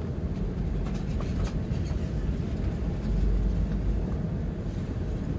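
Road noise heard from inside a vehicle's cab as it drives: a steady low rumble of engine and tyres, swelling a little in the middle, with a few faint clicks.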